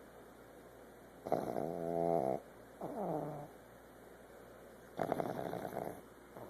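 Pug snoring in its sleep: a loud, pitched snore on the breath in about a second in, a shorter breath that falls in pitch just after, and another loud snore near the end.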